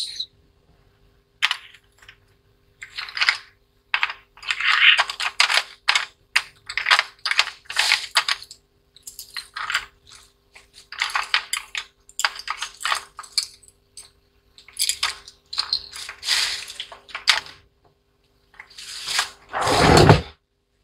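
Small hard objects being handled and rummaged through, with repeated clinks and rattles in short irregular bursts and a louder rushing burst near the end, over a faint steady hum.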